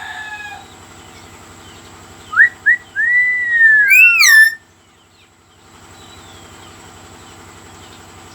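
A biung bird whistling: two short rising notes, then a long whistle that rises and falls, with a second higher note arching over it, stopping about four and a half seconds in.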